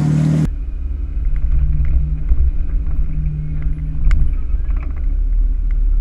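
Off-road vehicle's engine running at low speed during rock crawling, heard up close from on board as a deep, steady sound. A few light clicks and knocks come over it. About half a second in, the sound changes abruptly.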